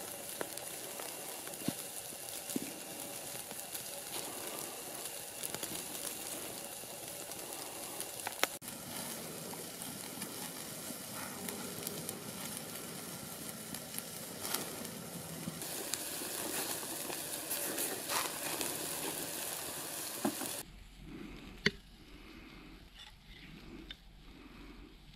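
Meat sizzling on a tripod-hung grill grate over a crackling wood fire, with sharp pops now and then. About twenty seconds in it cuts to a much quieter sound with a few light clicks of serving utensils against dishes.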